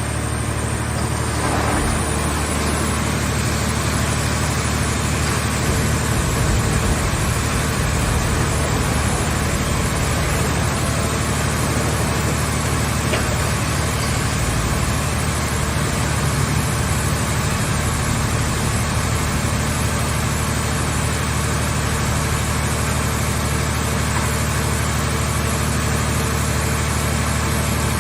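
Scrap car shell baler machine's power unit running steadily: a constant low engine hum that does not change in pitch or stop.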